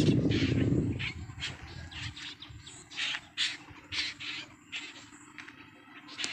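Crows cawing and other birds calling in short, separate calls, over open-air background. A low rumble, the loudest sound, fills about the first second and then dies away.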